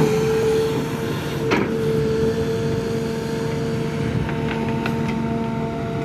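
Sumitomo SH350LC hydraulic excavator running, its engine sound carrying a steady high whine. There is one sharp knock about a second and a half in and a few lighter clicks near the end.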